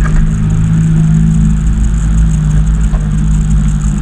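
A steady, loud low motor drone.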